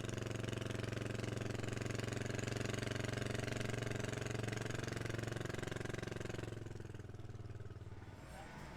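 Four-stroke Honda motocross bike engine idling steadily, fading down about two-thirds of the way through.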